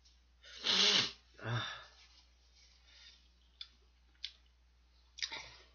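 A man blowing his nose hard into a tissue, two loud blows in quick succession about a second in. A couple of light clicks and a shorter blow or rustle follow near the end.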